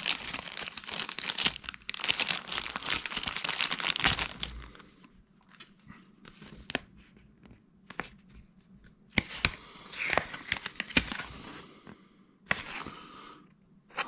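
Clear plastic bag crinkling steadily for about four seconds as a folded paper booklet is worked out of it. After that come scattered short rustles and clicks of paper and plastic as the booklet is handled and unfolded.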